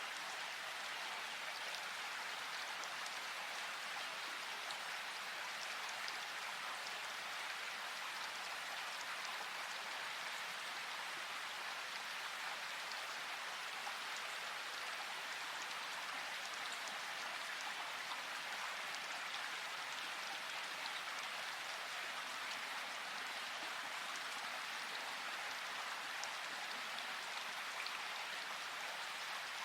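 Steady rain falling in a forest: an even hiss of rainfall, with scattered individual drops ticking throughout.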